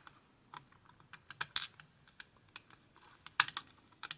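Irregular small metallic clicks and taps of lock pins and a tool being handled while the lock cylinder is taken apart, with a sharper cluster of clicks near the end.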